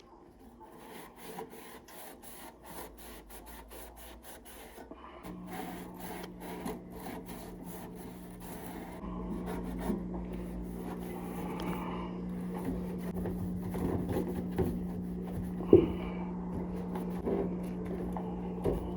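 Rubbing and scraping of hand cleaning work on a gas furnace, with many small clicks. A steady electric hum starts about five seconds in and gets louder about four seconds later, with scattered knocks and one sharp knock near the end.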